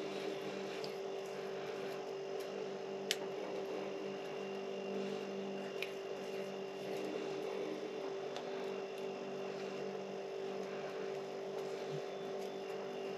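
Steady hum of room tone, with a few faint clicks from the thin copper wires of a stripped Ethernet cable being untwisted and straightened by hand; the sharpest click comes about three seconds in.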